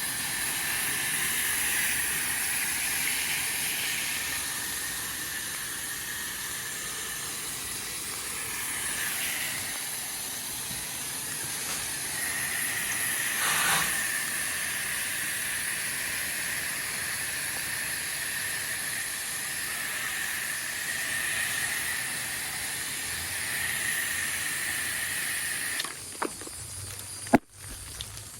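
Steady hiss of a pressure washer's water jet spraying. It cuts off suddenly near the end, and a few sharp clicks follow.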